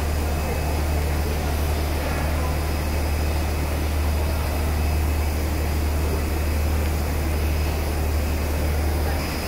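ABC three-layer 1600 mm blown film extrusion line running, giving a steady, unchanging mechanical drone with a strong low hum.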